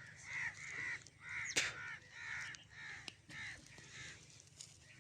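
Crows cawing over and over, about two caws a second, fading near the end, with one sharp click about one and a half seconds in.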